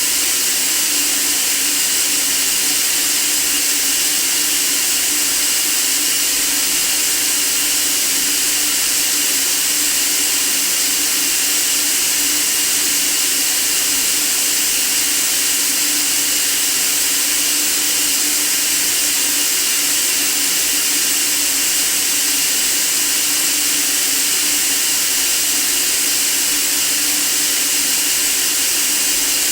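Steady white-noise hiss, unchanging, brightest in the high treble, with a faint steady low tone beneath it.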